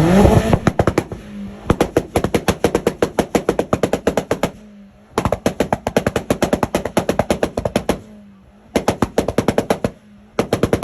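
Tuned car's engine revving up, then its exhaust popping and banging in rapid strings of about ten cracks a second. The cracks come in five bursts, typical of a rev limiter or launch-control crackle tune, with the engine dropping back to idle between them.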